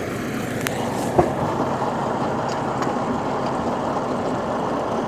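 Engine of a truck-mounted borewell rig running steadily, with a sharp click and then a knock about a second in.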